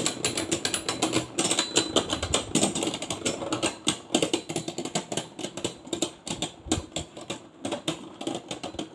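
Two Beyblade Burst tops, Vanish Fafnir and Dynamite Belial, spinning against each other in a plastic stadium. They make a rapid clatter of many small clicks a second as they repeatedly knock and grind together while fighting for the centre.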